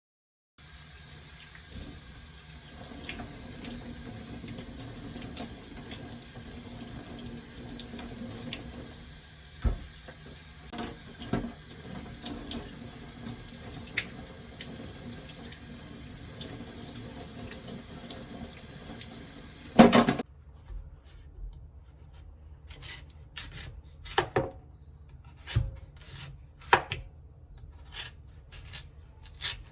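Tap water running into a sink, with occasional clinks, shut off abruptly about twenty seconds in; after that, scattered knocks and taps.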